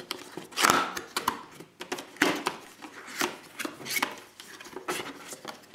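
Cardboard retail box being opened by hand: the tab pulled, the lid and a paper insert lifted, giving an irregular run of scrapes, taps and rustles, the loudest just under a second in.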